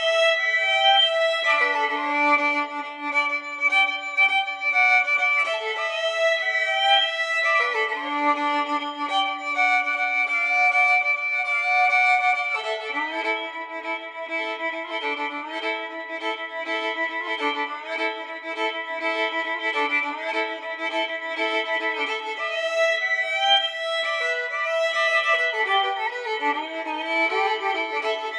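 Instrumental music: a violin-like melody of held notes, often several sounding together, with no bass underneath.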